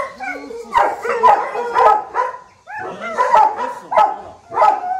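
Dogo Argentino barking repeatedly: a quick run of loud barks with a short break about halfway through.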